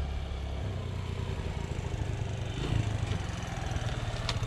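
A small engine running steadily, a low, even pulsing.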